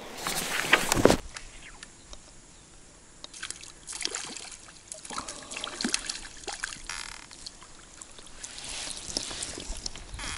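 A loud rush of noise in the first second, then a hooked roach splashing and thrashing at the water's surface as it is played in on a float rod, with irregular sloshing and dripping water.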